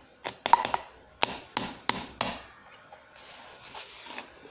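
A quick series of sharp taps and clicks of plastic containers being handled while slime is made, seven or so in the first two seconds, followed by a soft rustle about three seconds in.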